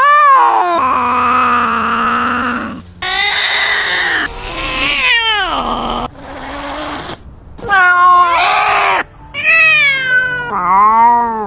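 Domestic cats yowling and caterwauling in a fight: a series of long, wavering, loud calls with short gaps between them.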